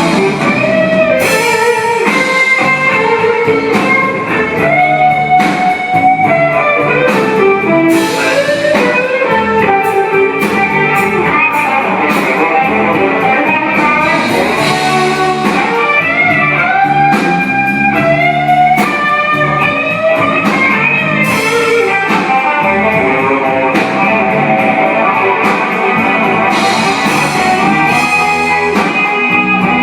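Live band music led by an electric guitar playing quick single-note melodic lines over a steady bass and drum backing.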